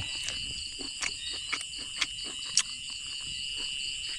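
Steady chorus of insects: a continuous high trilling with a fast-pulsing upper band. Several short sharp clicks or taps come through it, the loudest about two and a half seconds in.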